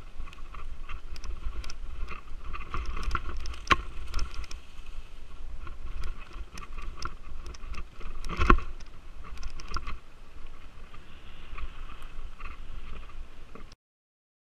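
Mountain bike clattering and rattling as it rides fast down a rooty dirt trail, with a steady low rumble and many small knocks from the bike over roots. Sharp knocks about 4 and 8½ seconds in, the second the loudest, and the sound cuts off suddenly near the end.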